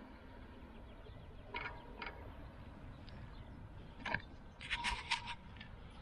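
Bicycle rolling along a paved road, a steady low rumble of wind and tyre noise, with a few short clicks or rattles twice near the start and a cluster of them about four to five seconds in.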